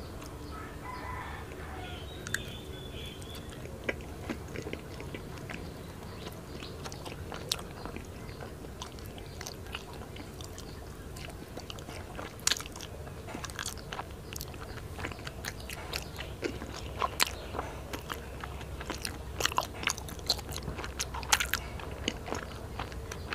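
Close-miked chewing of soft, sticky daifuku (mochi rice cake): wet mouth clicks and smacks, sparse at first and growing louder and more frequent after the bite about halfway through.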